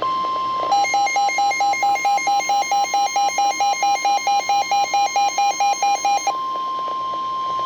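NOAA Weather Radio warning alarm tone: a steady, loud, single high tone of about 1050 Hz, signalling that a warning such as a winter storm warning follows. From under a second in until about six seconds in, a lower, buzzy beep pulses over it about four times a second, then stops, leaving the steady tone alone.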